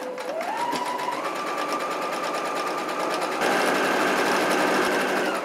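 Brother electric sewing machine stitching a seam through cotton fabric: the motor whine with its rapid needle ticking speeds up shortly after the start, then steps up again to its fastest and loudest about three and a half seconds in.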